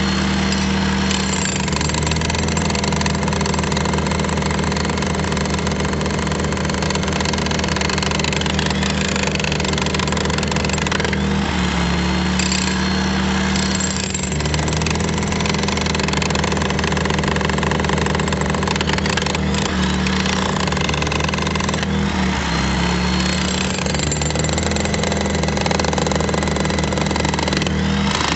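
Corded electric demolition hammer chiselling into a concrete footer: a continuous, rapid hammering with a steady mechanical drone, easing off briefly a few times.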